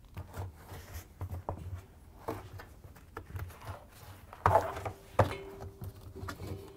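Rubber bellow tub seal of a front-load washer being pulled and worked off the front lip of the drum by gloved hands: irregular rubbing and scuffing, with two louder thumps about four and a half and five seconds in.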